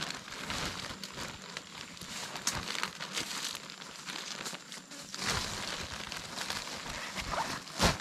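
A sack being handled, rustling and crinkling irregularly with scattered sharp crackles, one loud crack near the end.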